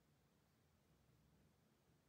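Near silence: faint room tone with a low hum.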